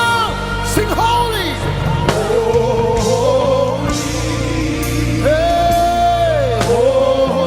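Live gospel worship music: a singer holding long notes that slide up and down over a band, with steady bass and drum hits about once a second.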